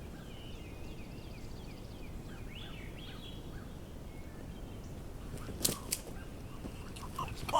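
Faint bird calls, short chirps, over quiet woodland background, then two sharp clicks about five and a half seconds in.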